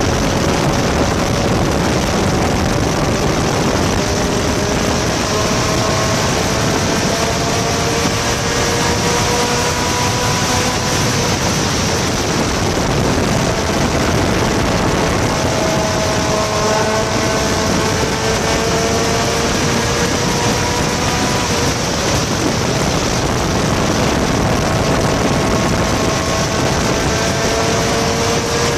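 Vintage sports car's engine under hard acceleration on a race track, heard from the driver's seat: its pitch climbs steadily over several seconds and drops back a few times. Heavy wind and road noise lies under the engine throughout.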